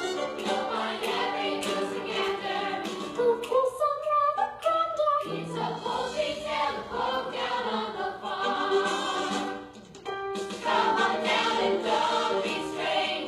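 A choir of stage voices singing a musical-theatre number, several pitch lines at once, with a brief drop in level about ten seconds in.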